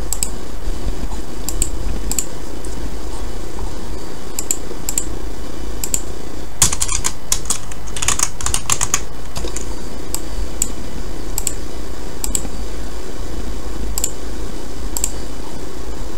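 Computer keyboard keystrokes: scattered single key clicks, with a quick flurry of typing about seven to nine seconds in, over a steady low hum.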